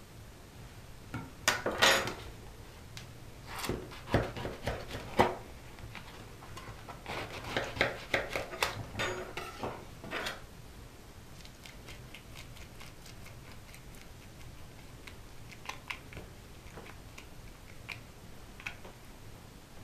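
Metal teaspoon scraping and clicking against a passion fruit shell as the pulp and seeds are scooped out, with a few louder knocks in the first half and only scattered light ticks later.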